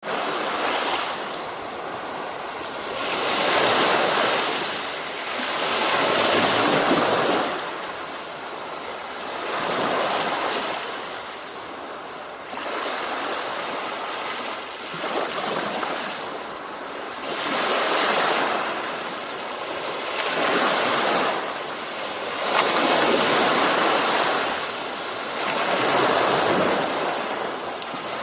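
Sea waves breaking and washing up onto a beach, a rushing surf noise that swells and fades every few seconds.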